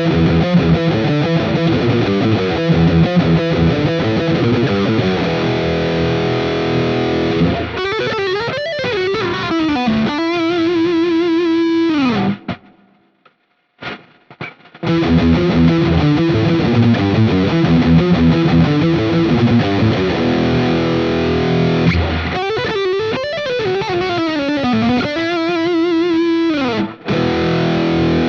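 Thinline Telecaster electric guitar played through distortion: a riff with sliding, bending notes that ends on a held note. It stops for a couple of seconds about twelve seconds in, and the same riff is then played again.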